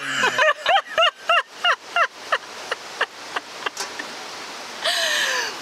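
Women laughing hard: a quick run of short "ha" bursts for about three seconds, then a breathy, wheezing gasp near the end as the laugh trails off.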